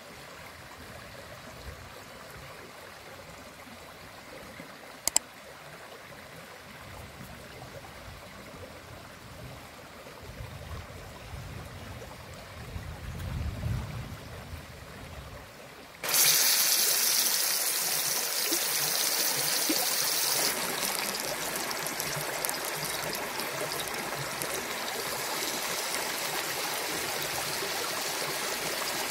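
A stream runs quietly behind a single sharp click and some low handling noise. A little past halfway a loud sizzle starts suddenly and goes on: salmon steak frying in a hot pan with melting butter.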